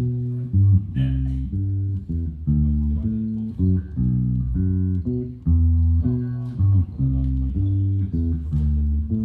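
Bass guitar played on its own for the sound check: a riff of short plucked notes in a steady rhythm, repeating, with the low notes strongest.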